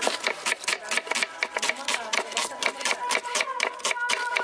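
Kitchen knife chopping red onions on a wooden cutting board: quick, even knocks of the blade on the board, about five a second.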